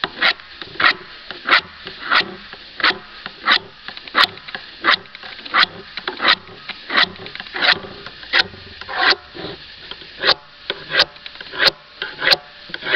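Handheld Block Sharpener's flexible sharpening rod stroked repeatedly along the edge of a chainsaw bar: short, even rasping swipes, about three every two seconds, filing off the burr that has built up along the bar's edge.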